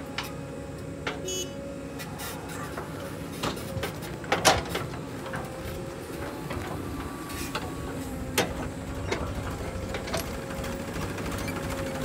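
JCB 3DX backhoe loader's diesel engine and hydraulics running under load with a steady whine, while soil is loaded into a steel tractor trolley, with sharp knocks and clanks, the loudest about four and a half seconds in and another near eight and a half seconds.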